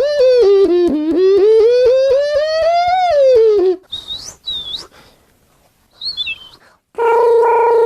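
A man making sound effects with his mouth: a long pitched tone with a fast flutter that dips, slowly climbs, then falls away. It is followed by a few short high whistled chirps like a bird, then a steady held tone near the end.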